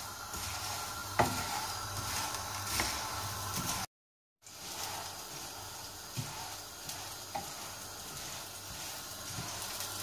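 Dry erişte noodles sizzling in hot oil in a frying pan as a wooden spoon stirs and turns them, toasting them until lightly browned, with occasional sharp knocks of the spoon against the pan. The sound cuts out for half a second about four seconds in.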